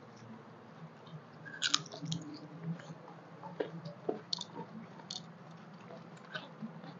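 People eating rice by hand: scattered soft, wet clicks and smacks of fingers mashing rice and boiled, mashed vegetables on a banana leaf, mixed with chewing, over a low steady hum.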